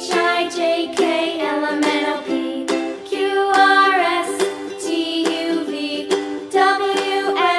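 Bright background music for children: plucked strings strummed in a steady beat, with a melody line over them.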